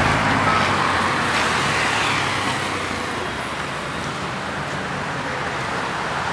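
Steady road noise in traffic on a rain-wet road: an even hiss of tyres on wet asphalt.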